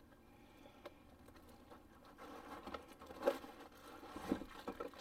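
Plastic packaging crinkling and rustling as it is handled, mostly in the second half, with a couple of sharper crackles.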